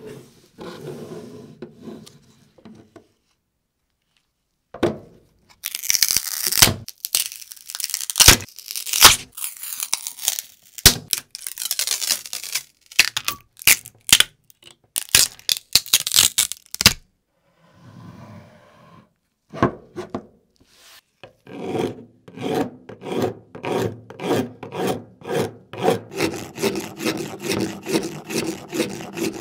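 Cured epoxy resin cast around a baseball bat being freed from its clear plastic mold, with loud crackling and tearing as the plastic and tape are pulled off. Later a metal blade scrapes the hardened resin in quick, even strokes, about two a second, shaving it off in flakes.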